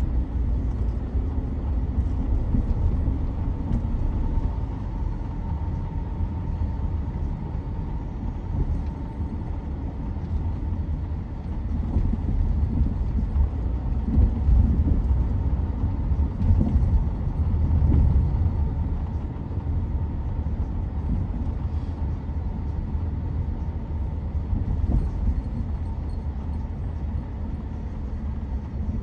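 Car driving, heard from inside the cabin: a steady low rumble of road and engine noise that swells a little now and then.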